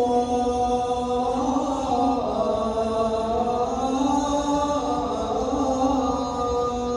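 A single voice chanting a slow melody in long held notes that glide gently up and down, with no speech over it.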